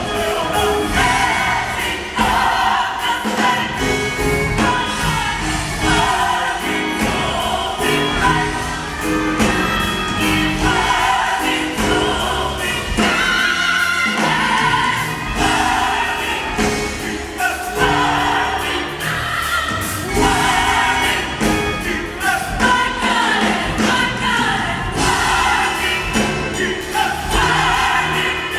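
Mixed gospel choir singing together in harmony, with a steady beat under the voices.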